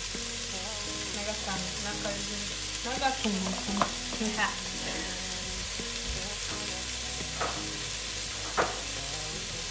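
Chopped onion, leek and celery frying in oil in a pot, a steady sizzle.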